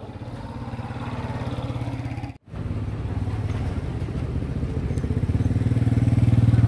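Small motorbike engines running at low speed with a rapid, even putter. The sound breaks off for a moment about two and a half seconds in, then a motorbike draws closer and grows louder toward the end.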